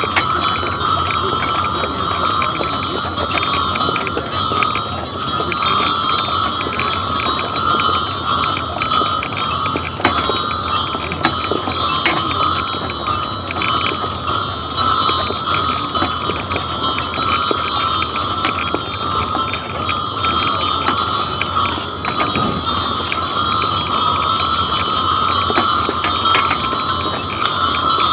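Bells on a two-horse team's harness jingling steadily as the horses walk, pulling a wagon.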